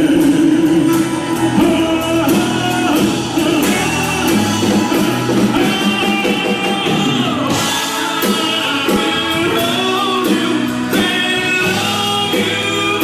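Live band playing a rock ballad with singing over it, guitar among the instruments.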